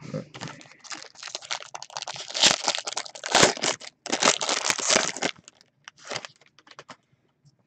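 Foil wrapper of an Upper Deck Premier hockey card pack crinkling and crackling as hands pull the cards out of it. Dense crinkling for about five seconds, then a few scattered crackles.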